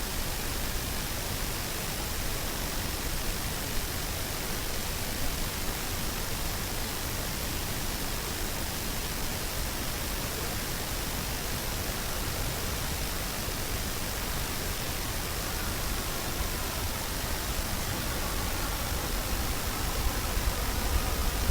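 Steady hiss of a night-time outdoor field recording in the woods, with a faint low rumble building over the last few seconds.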